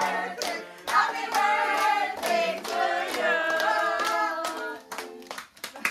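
A group of people clapping in time with a song, the claps landing about two to three a second over the held sung notes. Near the end the song drops away and only a few quicker claps remain.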